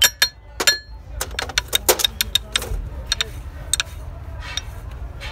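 Sharp, ringing metal-on-metal taps and clinks as a steel rod strikes the synchro hub and gear stack on a truck gearbox mainshaft, with a quick run of taps between about one and two and a half seconds in, then scattered ones.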